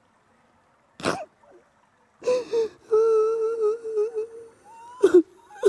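A woman sobbing: a sharp gasping breath about a second in, then a long, wavering, pitched crying moan, and more gasping sobs near the end.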